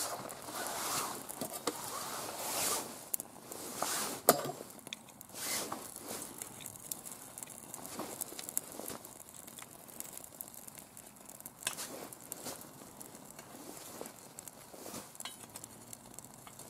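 Birch bark and fatwood kindling crackling as it catches fire inside a steel wood-gas camping stove, with irregular sharp snaps and pops.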